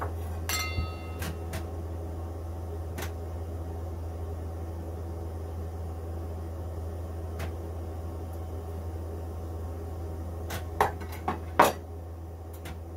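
Metal utensils and a stainless steel roasting tray clinking and knocking as a whole raw chicken is trussed and skewered: a short ringing clink about half a second in, a few scattered clicks, then a quick cluster of knocks near the end, the last the loudest. A steady low hum runs underneath.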